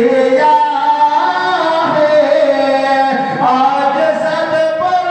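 A man singing a qawwali into a hand-held microphone, one amplified voice holding long notes and stepping through a melody.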